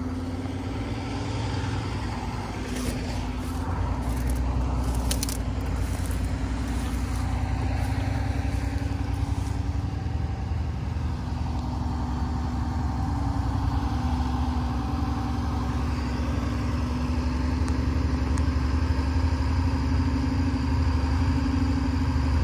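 Detroit Diesel engine on a Mudcat dredge running steadily under hydraulic load as the cutter head turns slowly, a low hum with a steady tone over it. It gets a little louder about four seconds in, with a few sharp clicks and rattles around that point.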